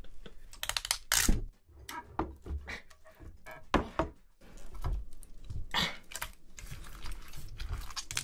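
Live octopus and live squid handled in plastic-gloved hands over a glass dish: irregular wet clicks and smacks, with a few louder ones about a second in, near four seconds and near six seconds.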